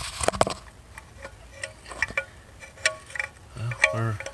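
Light, irregular metallic clicks and taps as a turbo oil drain tube with new O-rings is wiggled into its seat on a 6.0 Powerstroke diesel engine, with a brief low hum near the end.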